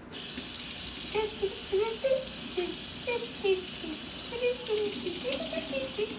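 Kitchen faucet running into a stainless steel sink, water splashing over hands being washed; it starts suddenly. Short pitched sounds that rise and fall come and go over the water.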